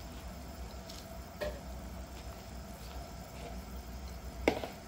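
Pot of chicken soup at a rolling boil: steady bubbling with scattered small pops, and one sharp click near the end.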